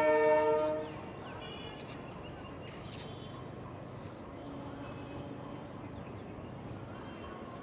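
A train's locomotive horn ends with a steady multi-tone blast that cuts off just under a second in. Then comes open-air station ambience with a low background rumble and a few short bird chirps.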